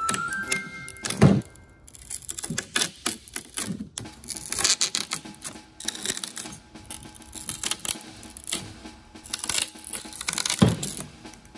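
Pruning cutter blades crunching through a Japanese angelica tree (taranoki) branch: a run of crackling as the blade bites into the wood fibres, with a sharp snap as the cut goes through about a second in and again near the end.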